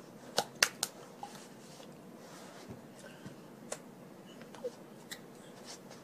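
Sharp taps and clicks from a person signing: three quick sharp taps about half a second in, then a few fainter scattered clicks, over faint room hiss.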